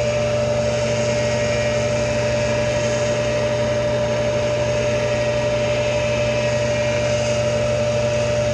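Electric tool post grinder spinning a 3.5-inch dish wheel at about 5,000 RPM, running free with a steady hum and a steady high-pitched tone, before the dresser touches the wheel.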